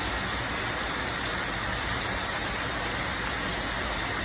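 A steady, even hiss of noise with no distinct events, like rain.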